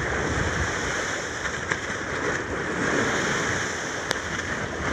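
Open-sea waves sloshing around a small outrigger boat, with wind on the microphone, and a single sharp click about four seconds in.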